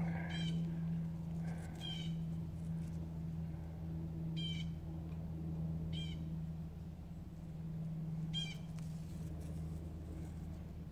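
An animal calling: five short, high calls spaced about two seconds apart, over a steady low hum.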